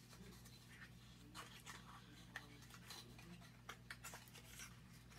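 Near silence, with faint scattered rustles and light clicks from a small cosmetics package being handled, over a low steady hum.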